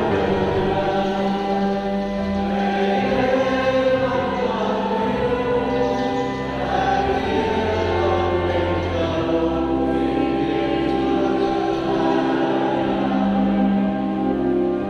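Choral music: a choir singing slow, held chant-like lines.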